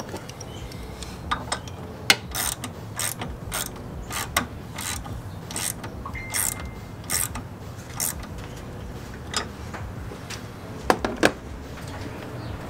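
Hand ratchet wrench clicking in short, uneven runs of strokes as a terminal nut is tightened, with two sharper clicks near the end.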